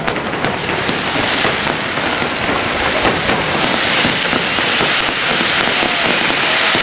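Many fireworks shells bursting in quick succession, their pops and crackles merging into a continuous dense crackle that grows louder and hissier from about halfway through.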